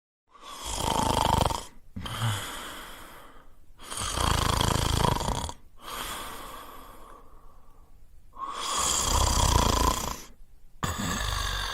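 A person snoring: three loud snores about four seconds apart, each followed by a softer breath.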